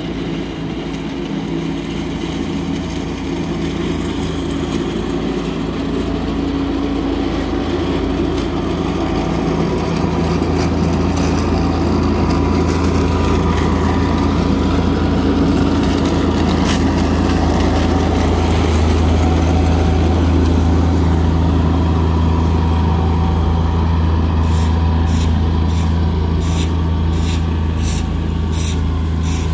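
Amazone Profihopper ride-on mower-collector running steadily at work, picking up frozen leaves from frosty grass. Its engine hum and the rush of the machine grow louder as it passes close, about two-thirds of the way through. Near the end, regular crisp clicks come about three every two seconds.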